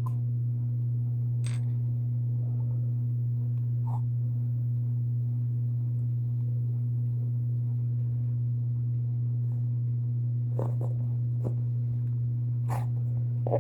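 A steady, unchanging low hum, with a few faint soft clicks or taps near the end.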